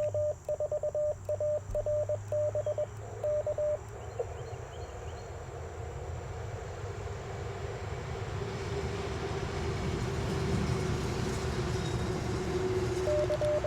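Morse code sidetone from an Icom IC-705 beeping out dits and dahs at one steady pitch for the first four seconds. Then a hiss of noise swells up over several seconds with a faint steady lower tone under it, and the keyed beeps start again right at the end.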